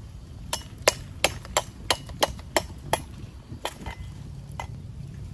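A run of sharp, hard knocks, about three a second for some two and a half seconds, then two fainter knocks further apart.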